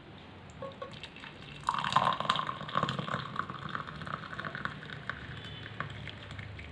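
Hot herbal decoction (kashayam) poured from the pan through a tea strainer into a cup. The stream of liquid starts suddenly a couple of seconds in and tapers off towards the end.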